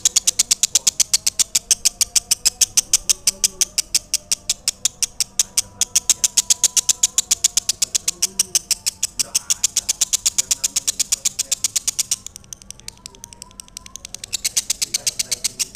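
Lovebird singing its long chattering song: an unbroken run of rapid, high, shrill chirps at about eight a second. It breaks off for a couple of seconds near the end, then starts again.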